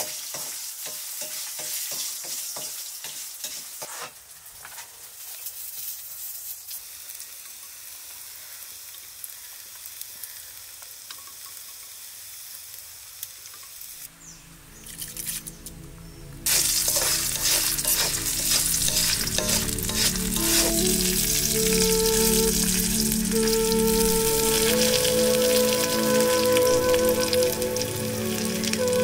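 Food sizzling in a hot iron wok over a wood fire, with a wooden spatula stirring and scraping through it in quick strokes at first. A little past the middle, background music with held notes comes in, louder than the sizzle.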